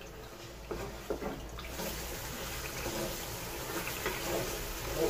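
Tomato paste and onions frying in oil in a pot, sizzling while a wooden spoon scrapes and knocks against the pot as it is stirred. The sizzle grows stronger about two seconds in. The paste is being fried down until its water cooks off and the oil separates.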